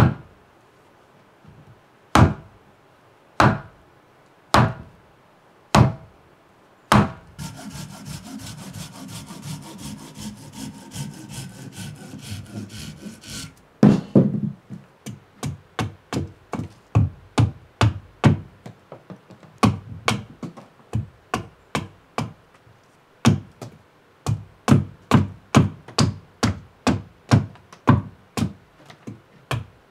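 Wooden blows on the back of a hand axe driving it into a birch round, one sharp knock about every second. Then several seconds of continuous rasping on the wood. Then quick axe chops hewing a split birch piece, about two a second.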